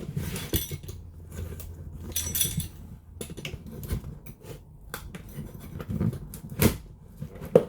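Cardboard delivery box being cut open with a pizza cutter: scraping and rustling of cardboard and tape with scattered clicks, and one sharp knock near the end.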